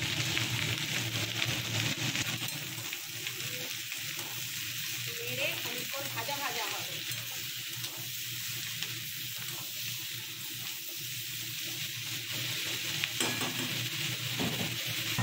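Sliced ivy gourd (kundri) frying in oil in a steel kadai: a steady sizzle, with a metal spatula scraping and stirring through the pan.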